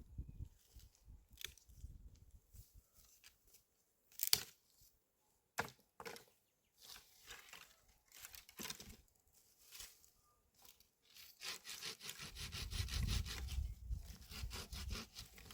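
Firewood being handled: a few sharp cracks of wood, then about four seconds from the end a denser run of quick scraping and rubbing strokes.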